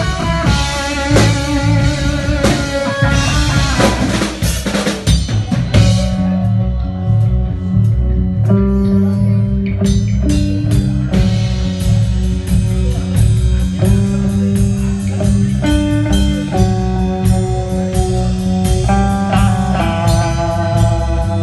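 Rock music with a blues feel, led by guitar over a drum kit with a steady beat.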